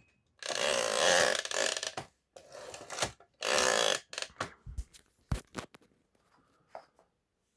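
Remington Portable typewriter being typed on past its released margin lock toward the end of the platen. There are two rattling runs of the typebar and carriage mechanism, then a scatter of single key clicks that thin out and stop about seven seconds in.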